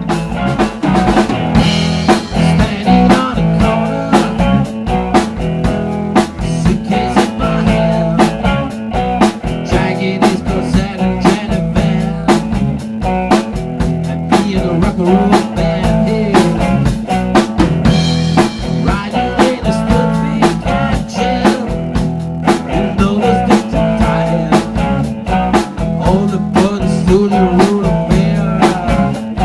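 Rock and roll band recording with drum kit and electric guitar playing a steady beat.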